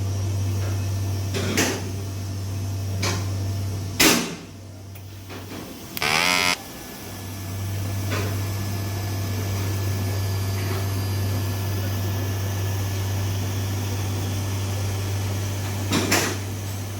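Welding-cell machinery: a steady electrical hum with several sharp mechanical clicks and knocks, the loudest about four seconds in. About six seconds in comes a half-second electric buzz, typical of a resistance spot weld firing.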